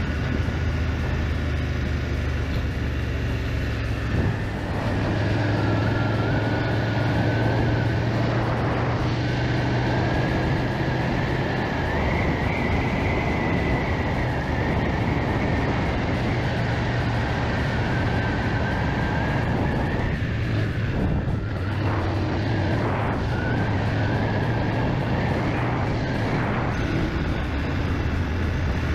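BMW GS motorcycle engine running at cruising speed under a steady rush of wind; the engine note steps up about four seconds in.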